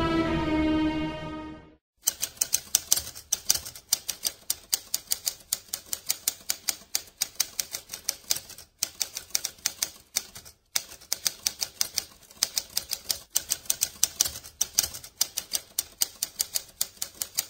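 Typewriter keys clacking in a fast, uneven stream, with two brief pauses. Before it, about two seconds in, a music passage fades out.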